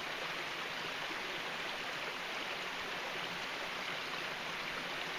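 Steady rushing noise with no distinct events, like running water.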